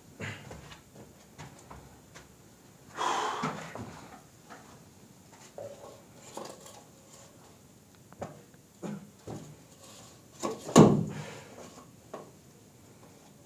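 Wooden sticks and rubble being handled and moved about on a concrete floor: scattered knocks, clatters and scrapes. A longer scraping rustle comes a few seconds in, and a sharper bang is the loudest sound near the end.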